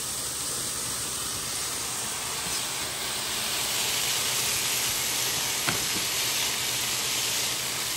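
Shredded potato, onion and carrot sizzling in oil in a frying pan as they are stirred with a wooden spoon. The sizzle grows louder about halfway through, with a single sharp tap near the middle.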